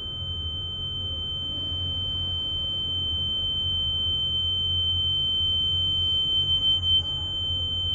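Soundtrack drone: a steady high-pitched tone held over a low rumble, slowly growing louder.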